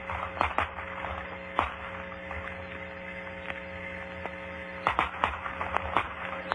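Anti-aircraft guns firing at practice, heard on an old radio broadcast recording: several sharp reports, a clear one about a second and a half in and a quick cluster about five seconds in, over a steady hum.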